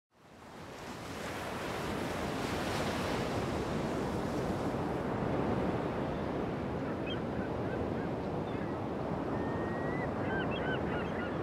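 Steady surf and wind at the seashore, fading in over the first two seconds. Many short bird calls join about seven seconds in and keep coming.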